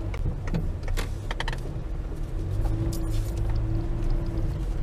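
Car engine running low, heard from inside the cabin as the car creeps over a bumpy farm entrance, with scattered irregular clicks and knocks.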